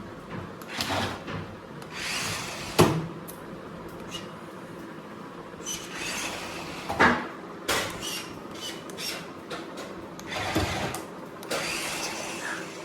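Battery-powered toy RC car driving in short bursts: its small electric motor and gears whir each time the throttle is applied. Two sharp knocks come about three seconds in and about seven seconds in.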